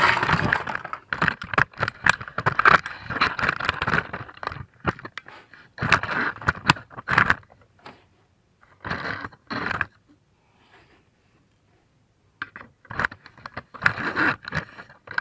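Handling noise and metal clinking, clattering and scraping as the camera is repositioned and hand tools are moved about. It is dense for the first four seconds or so, then comes in short bursts, with a pause around ten to twelve seconds in.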